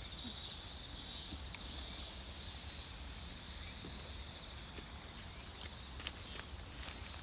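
Field insects such as crickets chirping in repeated high-pitched pulses that overlap in a steady chorus, over a low wind rumble, with a few faint clicks near the end.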